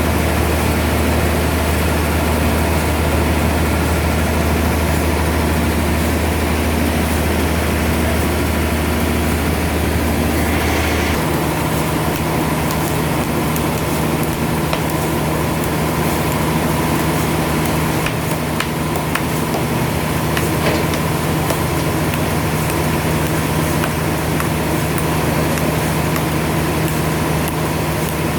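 Sawmill machinery running steadily with a low, even hum. About a third of the way in, the hum shifts up to a higher steady pitch.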